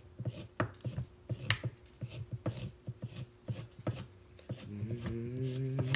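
Vegetable peeler scraping down a raw carrot in quick, irregular strokes, a few each second, shaving it into ribbons. Near the end a low, steady hummed note joins in.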